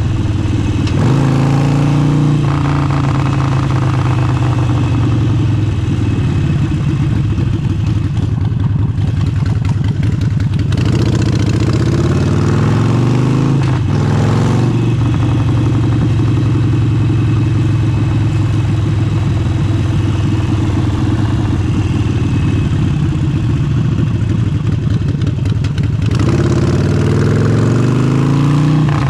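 Harley-Davidson Forty-Eight's air-cooled 1200 cc V-twin running through an aftermarket exhaust. Its note steps up and down several times as the revs change.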